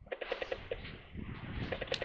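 Fishing reel ticking in quick runs of clicks, as a freshly cast pulley rig is tightened up.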